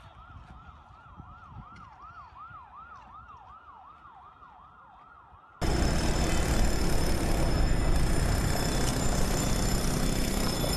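An emergency vehicle siren, faint and distant, in fast rising-and-falling sweeps about two and a half a second. About five and a half seconds in it cuts off abruptly to a much louder, steady rushing noise with faint steady high tones in it.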